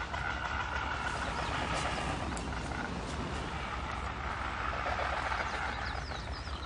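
Breeding-colony ambience of frigatebirds: a steady rushing background with faint, distant calls.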